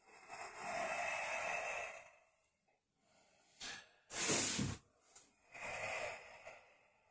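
A man breathing deeply and audibly: a long breath, a short sharp breath about four seconds in, then another long breath.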